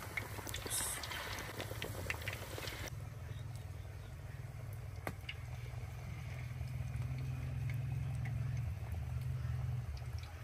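Battered fish pieces sizzling and crackling as they fry in hot mustard oil in a karahi. After about three seconds the sizzle drops to faint, sparse crackles over a low steady rumble.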